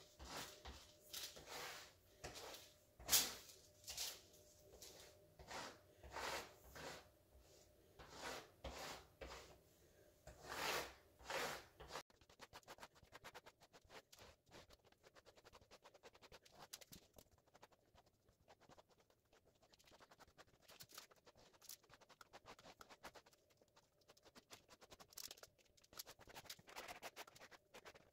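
An old plastic gift card scraping Mod Podge glue across the face of a jigsaw puzzle, working it in between the pieces. It is a series of soft scraping strokes, about one a second. About twelve seconds in, the strokes give way to fainter, quicker scratching.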